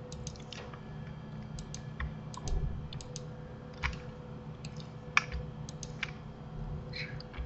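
Irregular clicks and taps of a computer keyboard and mouse, with a steady low hum underneath; the sharpest click comes about five seconds in.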